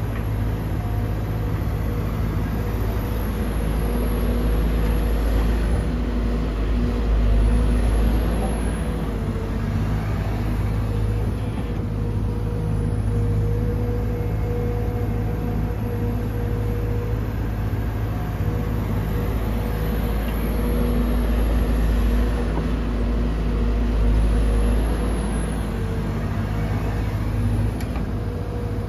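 Sumitomo SH210-6 hydraulic excavator's diesel engine running steadily under working load with a steady whine over it, the engine note swelling and easing every several seconds as the machine digs and swings to load a dump truck.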